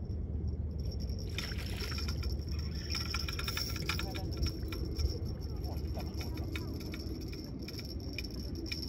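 Fishing reel giving quick, irregular clicks as a hooked fish is wound in, over a steady low rumble.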